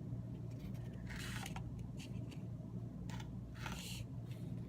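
Rice being scooped out of a takeout container: a few short scraping and rustling sounds over a steady low hum.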